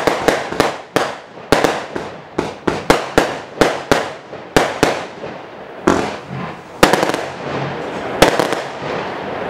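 A 20 mm firework cake firing its closing shots: a rapid string of sharp bangs, two to three a second, then three louder, more widely spaced bangs, the last one trailing off.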